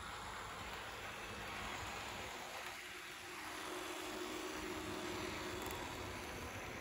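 PIKO ICE 3 H0-scale model train running past on its track: a quiet, steady rolling whir with a faint motor hum that comes in about halfway through and fades near the end.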